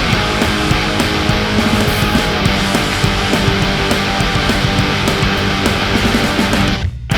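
Loud background rock music with distorted electric guitar and a fast drumbeat; it drops out briefly near the end before resuming.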